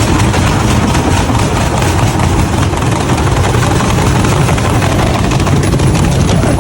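A loud, steady mechanical rumble and roar that starts and stops abruptly.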